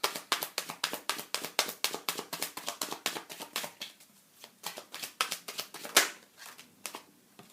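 A deck of tarot cards being shuffled: a rapid run of card clicks for about four seconds, then scattered taps with one sharper snap about six seconds in.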